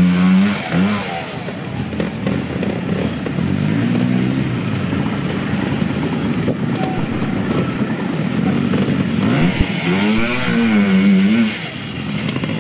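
Classic trials motorcycle engines revving up and down at low speed, pitch rising and falling with the throttle, loudest near the start and again about ten seconds in before easing off.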